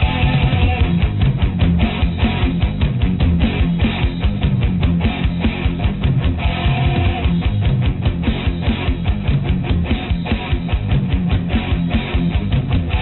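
Rock music soundtrack with guitar over a fast, steady drum beat.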